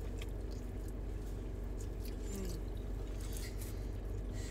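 Close-up chewing and biting of crunchy pizza crust, soft crackly crunches over a steady low hum.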